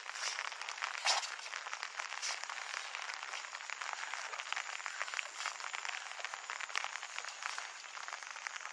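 Steady rain falling, a dense crackling patter of many small drops, with one louder drop or tap about a second in.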